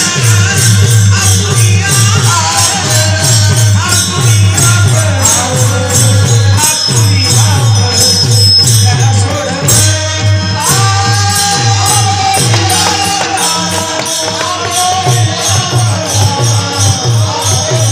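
A male voice singing a devotional kirtan melody (chal), accompanied by a drum and small hand cymbals keeping a steady, quick beat of about three strokes a second.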